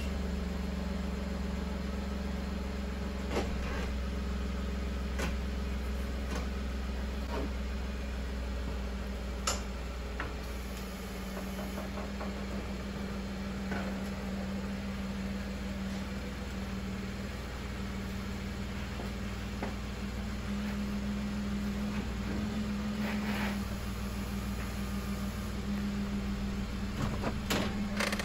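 Chevrolet Colorado ZR2 Bison pickup's engine running at a low, steady idle as the truck creeps its front wheel up a steel flex ramp, with a few scattered light clicks and knocks.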